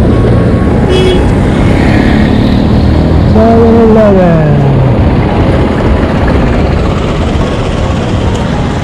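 Street traffic at a busy intersection: cars and jeepneys running and passing close by. About three and a half seconds in, a passing vehicle gives a pitched drone that falls steadily in pitch over a second or so.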